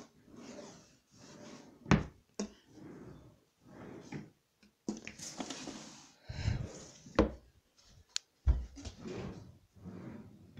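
Drawers of a chest of drawers being pulled open and pushed shut, with several sharp knocks and a few heavy thumps. Softer scraping and rustling fills the gaps between them.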